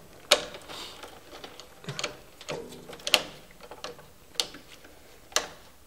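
Irregular clicks and knocks of stiff electrical cables being handled and pushed through the wiring inside a distribution board, about six in all, the loudest about a third of a second in.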